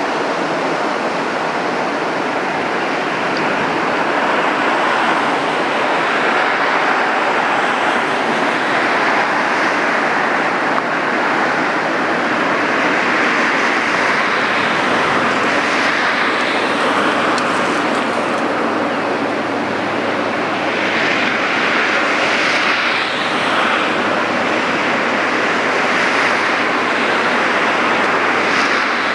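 Steady, loud rushing noise with slow swells in strength, and a low steady engine hum that comes in about halfway.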